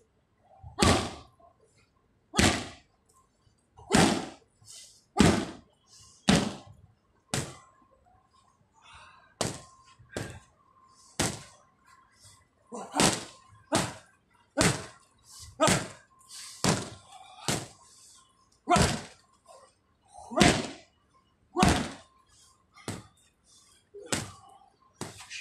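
Boxing-glove strikes landing on Muay Thai pads during pad work: sharp slaps about once a second, some in quick doubles.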